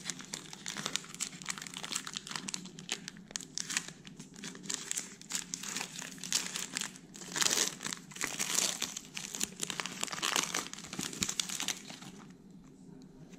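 Foil wrapper of a trading-card pack crinkling and tearing as it is opened by hand, with the cards being handled; it stops about twelve seconds in.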